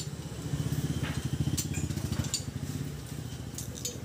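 Motorcycle engine idling with a fast, even low pulse that fades in the last second, with a few sharp clicks over it.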